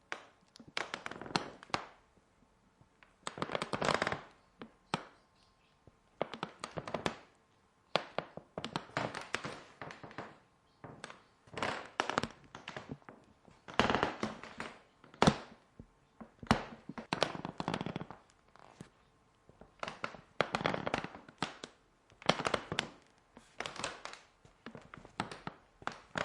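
Creaking wood: a series of separate creaks, each about a second long and made of rapid crackling clicks, coming every second or two with short quiet gaps between.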